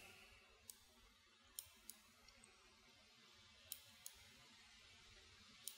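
Faint computer mouse clicks, about six scattered across a few seconds, against near silence.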